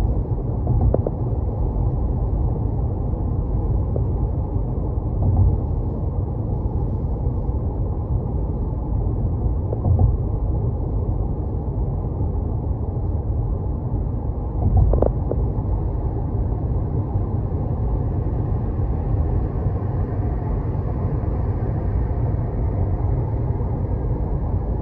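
Steady low rumble of a car driving on city roads, with a few brief thumps, the largest about fifteen seconds in.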